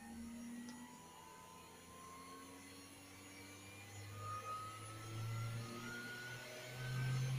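A Chinese 500 W ER11 DC CNC spindle motor running and being sped up. Its whine rises slowly in pitch and grows louder, and is loudest near the end.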